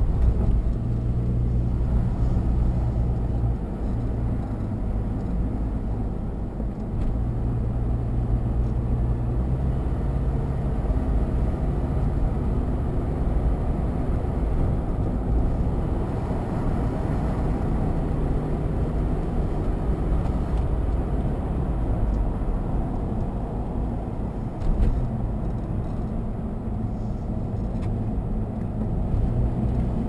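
Car engine and tyre noise heard from inside the cabin while driving on paved road; the engine's hum rises and falls as the speed changes. A single brief thump about 25 seconds in.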